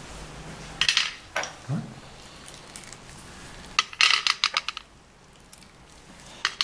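Snail shells clicking against a stainless steel escargot plate as they are handled and set into its hollows: a few sharp clicks about a second in, then a quick run of clicks around four seconds in.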